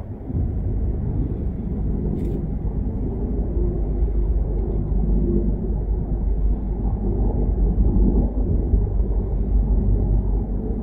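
Sikorsky CH-53K King Stallion heavy-lift helicopter flying by: its three turboshaft engines and rotors give a steady low rumble that grows a little louder toward the middle and eases slightly near the end.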